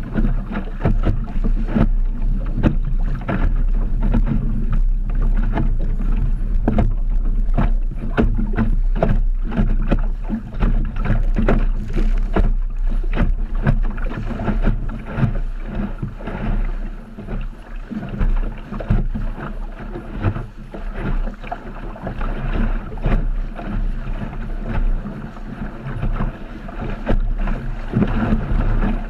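Optimist dinghy beating through choppy water: irregular slaps and knocks of waves and spray against the hull, over a steady rumble of wind on the microphone.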